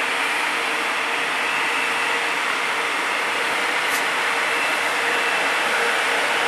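Electric freight locomotive pulling away slowly: a steady rushing drone from its motors and cooling blowers, with a faint hum, growing slightly louder as it approaches.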